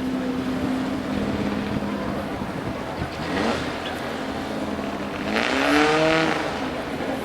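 Toyota Corolla off-road race car's engine running at steady revs. Its pitch climbs briefly about three seconds in, then climbs again, louder, as it accelerates near the end.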